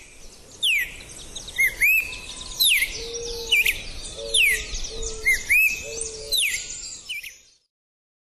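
Red-crested cardinal singing: a run of clear whistled phrases, each sweeping down and then up, repeated about once a second. The song breaks off abruptly near the end.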